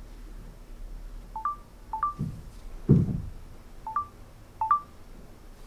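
Short two-note electronic beeps from a smartphone, a lower note then a slightly higher one, sounding four times at irregular intervals. Two dull low thumps come about two and three seconds in, the second the loudest sound here.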